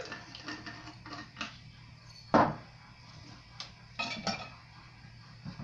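Glass jars and metal jar lids clinking and knocking as the lids are set on three-litre jars of cucumbers. About ten short clinks, the loudest about halfway through.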